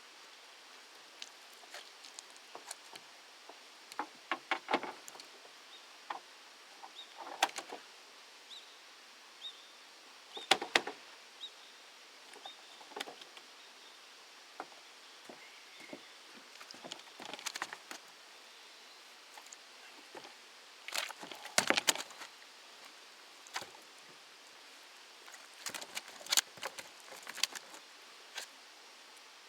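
Irregular sharp clicks and knocks in small clusters over a steady hiss, the loudest group about three quarters of the way through.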